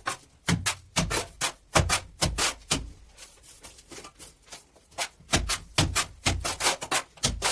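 Repeated hand-hammer blows on masonry in irregular runs of about two a second, with a pause of a couple of seconds in the middle.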